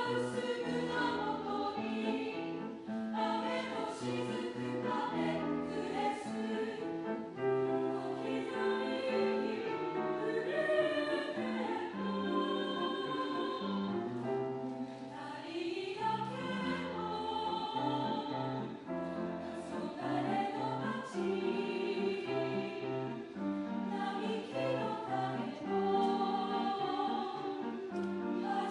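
A choir singing held chords, over a low part that moves in a steady rhythm.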